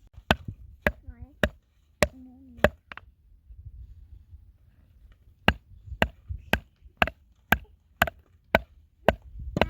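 Repeated sharp chopping strikes, about two a second. A run of six is followed by a pause of about two seconds, then a steady run of about nine. Twice during the first run, a brief wavering pitched sound comes between the strikes.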